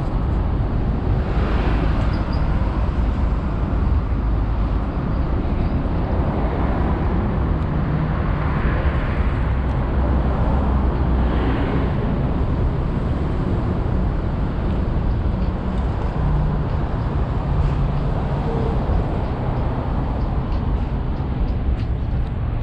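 Steady traffic noise from an elevated expressway and the road beneath it, a continuous low rumble with a few vehicles passing louder about 2, 9 and 11 seconds in.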